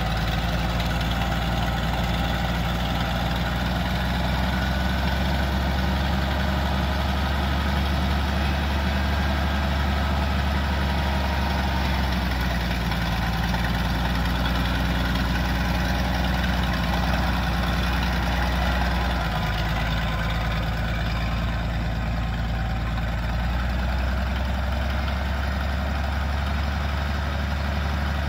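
1969 Minneapolis-Moline G1050's LP-gas six-cylinder engine running steadily under way as the tractor drives across the field. The engine note shifts slightly about two-thirds of the way through.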